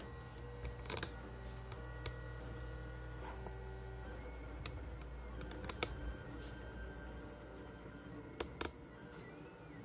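Lulzbot Mini 3D printer at work: its stepper motors whine in thin tones that change pitch every second or so as the print head and bed move, over a low hum that eases about four seconds in. A few sharp clicks stand out, the loudest just before six seconds and a pair near the end.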